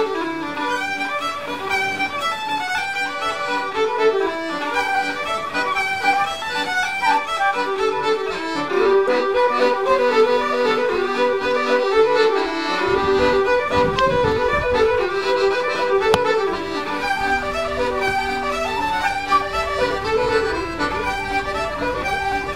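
Background music led by a fiddle melody, with a low bass part coming in about halfway through.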